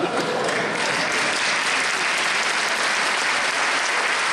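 Audience applauding steadily, a dense even clapping from a large crowd in a hall.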